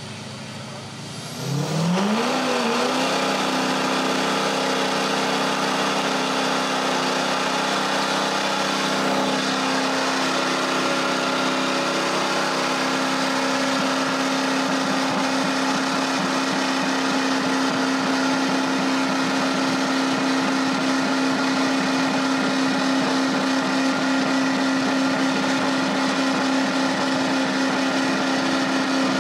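Heavy-duty pickup truck engine revving up about a second and a half in, then held at high, steady revs through a long burnout, with the rear tyres spinning and scrubbing on the wet pavement.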